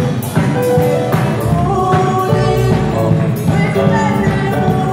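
Live gospel praise music: a band of drum kit, keyboard and electric guitar playing a steady beat, with a group of singers singing over it.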